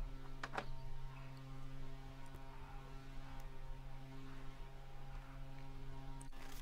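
A steady low hum with faint overtones, and a couple of faint knocks about half a second in.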